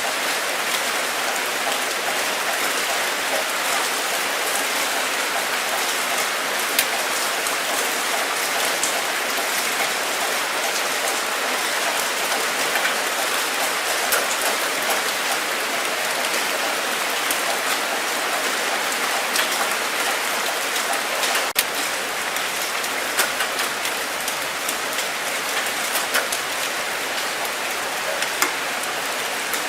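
Steady rain falling, a dense even hiss with scattered individual drops ticking, a few slightly sharper.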